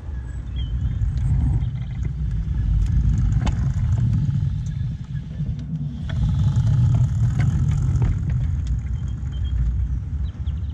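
Miniature 7¼-inch gauge locomotive running over the track directly above a low microphone: a deep rumble of steel wheels on rail with scattered clicks at the rail joints. It swells twice, about a third and two-thirds of the way in, and fades near the end.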